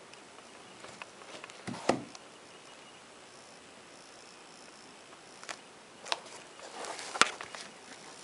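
Hands handling basketball sneakers on a table: a rustle and knock about two seconds in, then scattered taps and rustles from about five and a half seconds on, the sharpest a click near the end, over a faint steady hiss.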